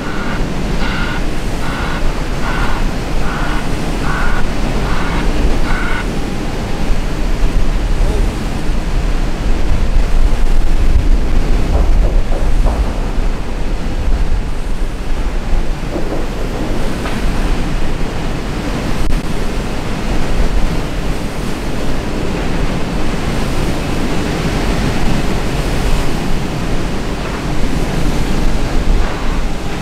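Wind buffeting the microphone, a loud steady rumble. A reversing alarm beeps a little more than once a second over it, stopping about six seconds in.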